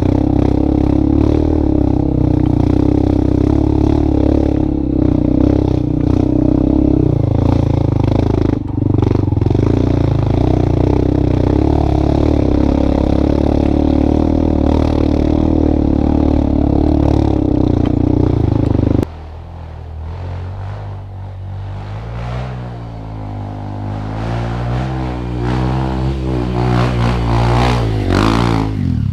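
An engine running steadily; about two-thirds of the way through it cuts off abruptly into a quieter engine sound that rises and falls in pitch.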